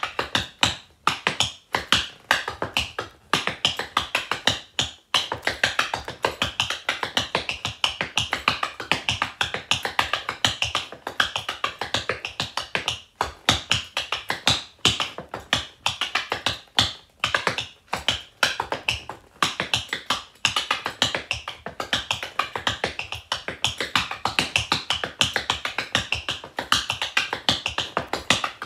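Rhythm tap dancing: the metal taps of tap shoes striking a wooden board in fast, dense runs of clicks, broken by a few brief pauses.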